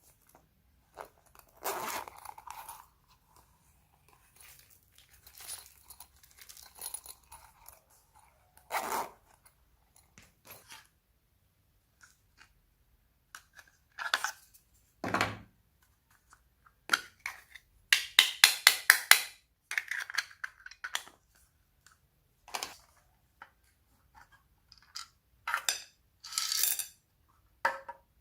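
Slime being squished, stretched and pressed by hand, giving irregular crackling, tearing and popping sounds with short pauses between them, and a quick run of clicking pops about two-thirds of the way in.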